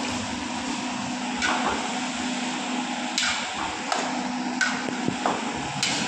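Long metal ladle knocking and scraping against a kadai about half a dozen times as spinach is stirred, over a steady hiss and a low hum.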